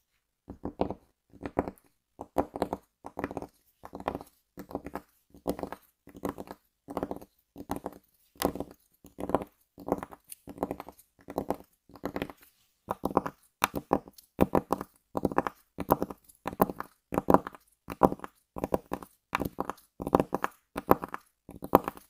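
Fingertips tapping on a cloth-covered desktop, a steady run of taps at about two to three a second, in small clusters.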